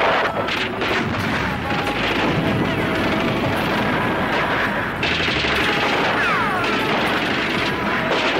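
Battle soundtrack of shells exploding and guns firing in rapid bursts, with the falling whistle of an incoming shell about two-thirds of the way in.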